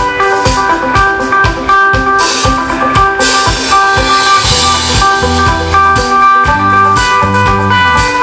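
Live band playing a country-pop song's instrumental intro: acoustic and electric guitars over a steady drum beat. A crash about three seconds in, and heavy bass notes fill out the low end from about four and a half seconds.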